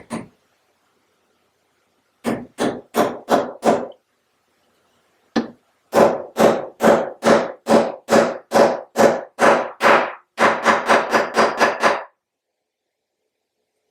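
A hand tool working wood in a series of short, sharp strokes: five quick ones, a lone stroke, then about a dozen at a steady two to three a second, quickening near the end before stopping.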